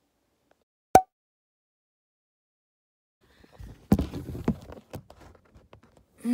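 Handling noise from a phone camera being moved and propped up inside a car. A cluster of bumps and knocks over a low rumble starts about three and a half seconds in, after a single sharp click about a second in and otherwise near silence.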